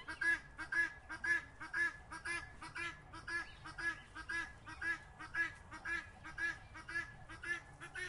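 Helmeted guineafowl calling over and over, about two short calls a second, until the calling cuts off at the very end.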